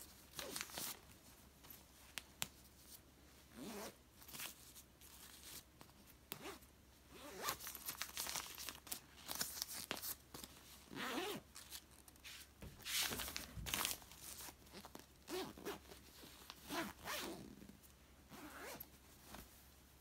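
Zipper on a velour pillow cover being pulled in a series of short strokes, with handling of the cover between them.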